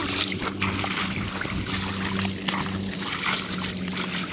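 Pond water splashing and trickling as waders pull a fishing net and lift dripping water-hyacinth clumps out of the water, with many small splashes. A steady low hum runs underneath.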